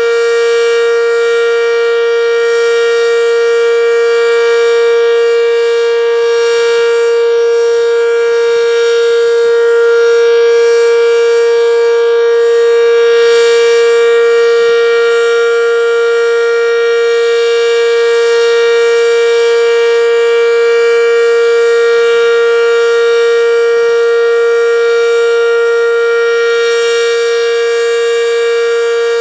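Werden Electric B-115, a single-tone omnidirectional electric warning siren, sounding one steady, very loud tone at a constant pitch.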